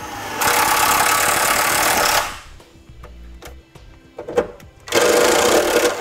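Cordless driver running a #14 self-tapping screw into the truck's sheet-metal underbody, in two runs: the first about two seconds long after a brief wind-up, the second about a second long near the end.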